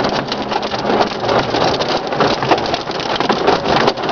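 Heavy hailstorm: a dense, steady clatter of countless hailstones striking surfaces, mixed with pouring rain.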